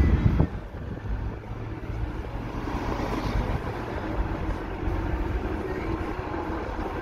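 Road noise inside a moving car: a steady low rumble of engine and tyres, louder for about the first half-second.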